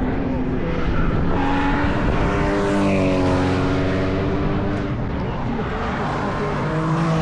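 Race car engines passing through the Hatzenbach section of the Nürburgring Nordschleife, the engine note dipping slightly in pitch through the middle. Another car comes in louder near the end.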